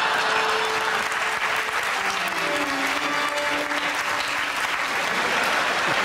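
Studio audience applauding steadily, with a few held notes over the clapping.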